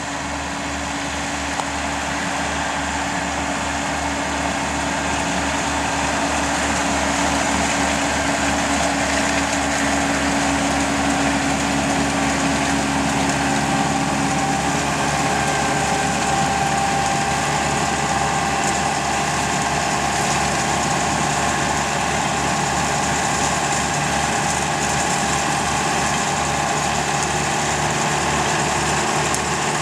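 Renault Ceres tractor's diesel engine running steadily while working a John Deere 575 round baler in hay. There is a constant low engine beat with a steady machine whine over it that shifts in pitch about halfway through.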